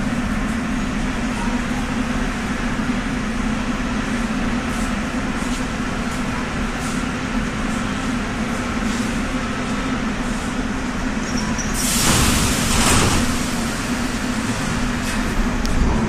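Metro train standing at an underground platform: a steady low hum from its onboard equipment, and about twelve seconds in a loud hiss of compressed air from its pneumatic system lasting a second or two.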